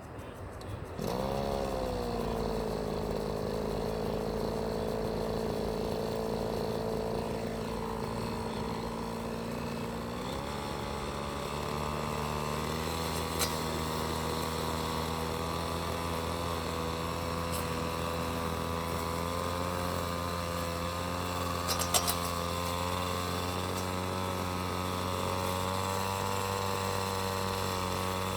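A nearby motor vehicle engine running steadily at a constant low pitch, starting about a second in with a brief dip in pitch and shifting slightly twice. A few sharp clicks sound over it.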